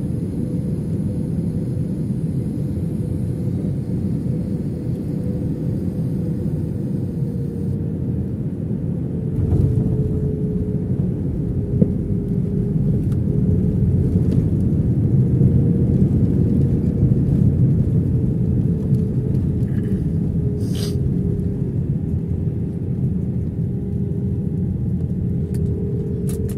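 Jet airliner rolling on the runway after landing, heard inside the cabin beside the wing engine: a steady deep rumble with a wavering engine tone. It grows louder about ten seconds in and eases again later.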